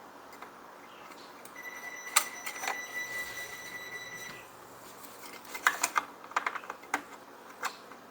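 Fuel line being worked through the hole in a leaf blower's plastic fuel tank: a thin steady squeak for about three seconds, then a run of light plastic clicks and taps.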